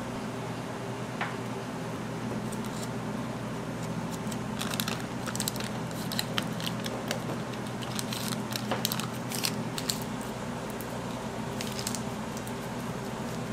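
Scattered crisp clicks and crinkly rustles of small objects being handled at a work surface, thickest in the middle, over a steady low machine hum.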